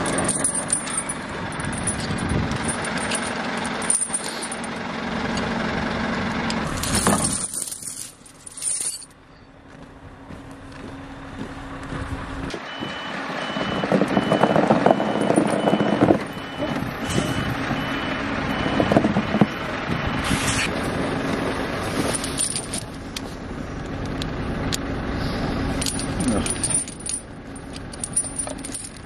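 Scania R650 timber truck's V8 diesel engine running. For several seconds in the middle a reversing alarm beeps about one and a half times a second as the truck backs up.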